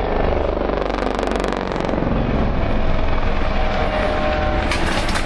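Eurocopter EC120B Colibri helicopters flying, with a steady beat of rotor blades over the whine of their turbine engines.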